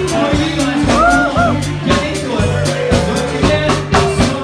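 Loud upbeat music with a steady drum beat and bass line, with voices over it.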